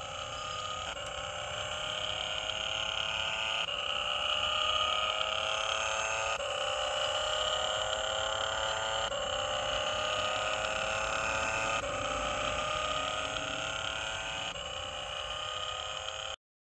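Toy RC smoke-spray car's built-in speaker playing a looped electronic engine sound: a steady high tone pattern that restarts about every two and a half seconds, then cuts off suddenly near the end.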